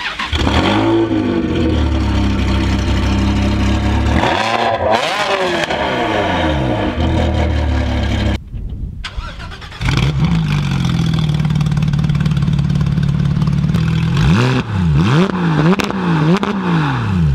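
Ferrari 360 Spider's flat-plane V8 idling through a very loud aftermarket exhaust, blipped a couple of times about four to six seconds in. After a short break, the straight-piped Porsche 911 GT3 RS flat-six idles, then is revved in several quick blips near the end.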